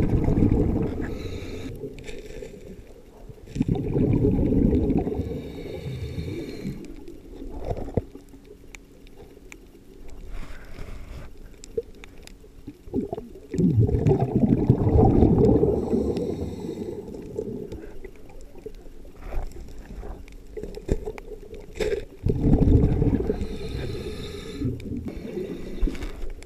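Scuba diver breathing through a regulator underwater: loud bubbling rumbles of exhaled air four times, about every eight to nine seconds, with a fainter hiss of inhalation between them and scattered clicks.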